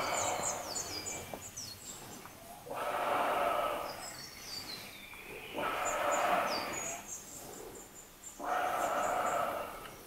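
A person breathing slowly and heavily, four long breaths about three seconds apart, while small birds chirp faintly and high in the background.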